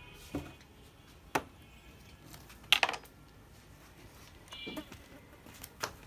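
Ceramic plate knocking and clinking against a plastic cutting board as it is handled and set down: a few separate sharp clinks, the loudest a short rattling clatter about three seconds in.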